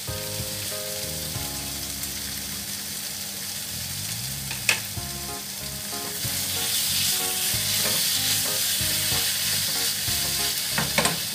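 Prawns, petai beans and chilli spice paste sizzling in oil in a hot non-stick wok while a spatula stirs them. The sizzle swells about six seconds in, with a sharp tap of the spatula on the pan about halfway through and another near the end.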